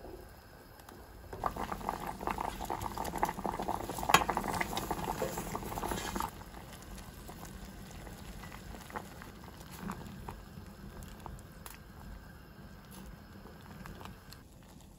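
Food cooking on the stove: a loud, dense crackle of bubbling or sizzling starts about a second and a half in and stops abruptly about six seconds in. A fainter steady cooking hiss follows, with scattered small ticks.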